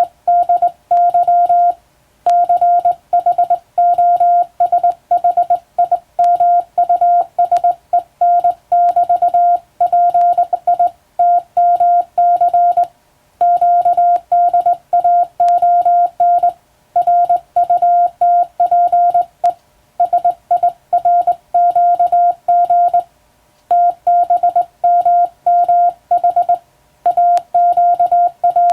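Morse code sent by hand on a telegraph key: a steady tone of about 700 Hz keyed into fast dots and dashes, broken by short pauses between words every few seconds. Faint clicks mark many of the key strokes.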